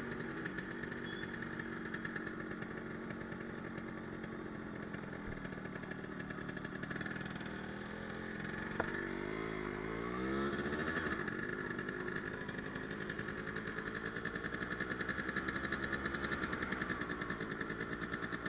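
Yamaha RX100's two-stroke single-cylinder engine, fitted with a performance CDI, running as the motorcycle is ridden. Its note falls and rises again about halfway through, then carries on steadily.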